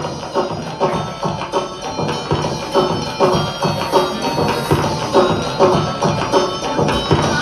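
Live rock band playing the opening of a song: a quick, steady rhythm of drum strikes under pitched guitar notes, gradually getting louder.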